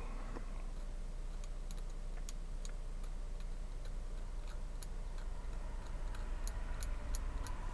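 Light, irregular clicks and taps of small hand tools being handled, over a steady low electrical hum.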